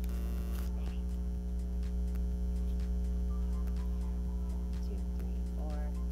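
Steady low electrical mains hum from the recording gear, with a short crinkle of a foil Pokémon booster-pack wrapper at the start and faint clicks of cards being handled.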